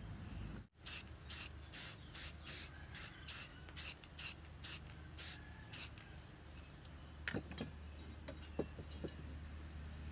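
An aerosol spray paint can is sprayed in about a dozen short hisses, roughly two a second. A few light clicks and taps follow near the end.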